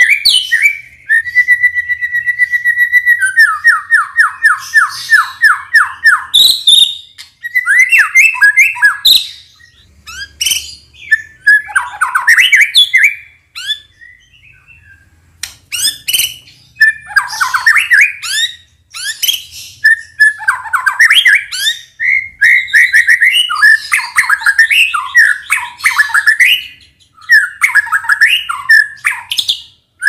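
White-rumped shama singing a long, varied song full of mimicked phrases: a held whistle, then a fast trill, then many quick changing phrases with a short pause about halfway.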